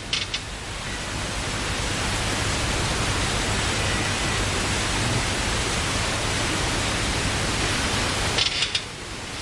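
A steady, even hiss that swells over the first couple of seconds, holds, and fades away near the end, with no distinct event in it.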